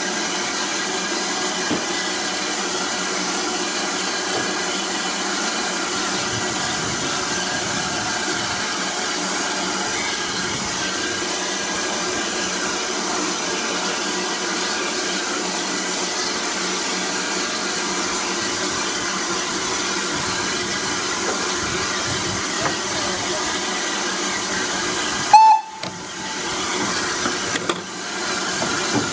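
Steam locomotive (SR U class 2-6-0 No. 1638) standing with a steady hiss of escaping steam. About 25 seconds in it gives one short whistle blast, the hiss drops away, then builds again as the engine starts to move off.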